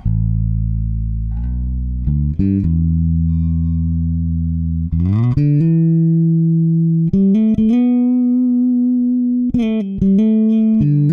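Electric bass played through a Fuhrmann Bass Compressor pedal set for long release: long held notes that ring on at an even level without dying away, showing the pedal's added sustain. A few quick plucked notes come between them, and about five seconds in the bass slides up to a higher held note.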